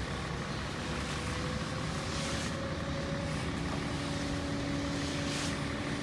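Steady drone of running vehicle engines, with a faint hum that slowly rises in pitch and a second, lower hum joining about halfway through.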